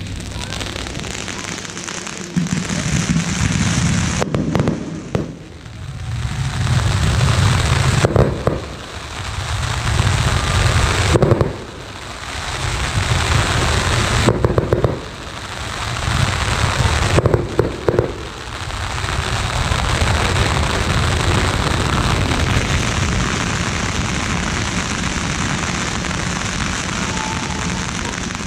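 A row of firework gerbs (ground fountains) spraying sparks with a loud, continuous hiss. For the first two-thirds the hiss swells and drops off about every three seconds, then it holds steady to the end.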